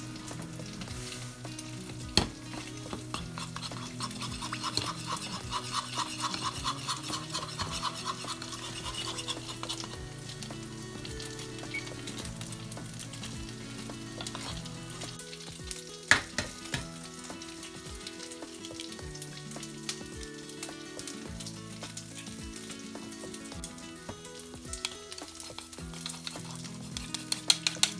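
Food sizzling and frying in a pan while a utensil stirs and scrapes, with small clicks throughout, sharp knocks about 2 and 16 seconds in, and a quick run of clacks near the end. Soft background music plays underneath.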